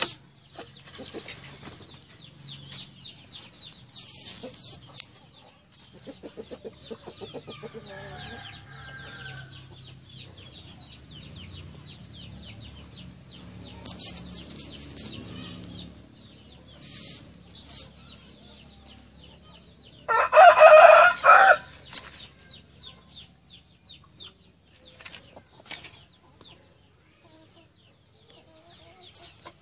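Chickens clucking, with a rooster crowing once about two-thirds of the way through, the loudest sound here. A steady high chirring runs underneath.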